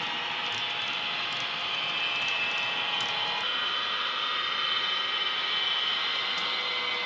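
Model Stadler Class 159 locomotive's ESU LokSound decoder playing running sounds through its onboard speakers: a steady drone with whining traction-motor tones that shift in pitch about three and a half seconds in. Light clicks of the model wagons' wheels on the track come through for the first few seconds.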